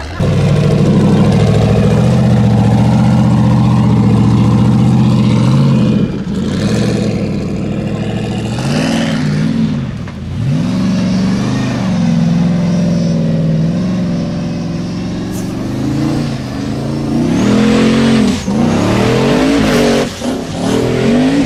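Off-road competition buggy's engine at full throttle, held steady at high revs for several seconds, then rising and falling in repeated surges as it works under load up a steep dirt climb.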